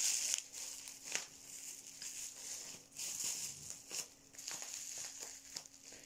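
Packaging being handled while items are unwrapped from a parcel: rustling and crinkling, with scattered small clicks and knocks.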